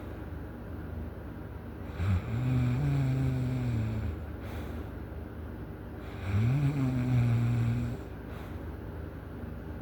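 A person snoring loudly: two long snores about four seconds apart, each a low droning tone lasting about two seconds.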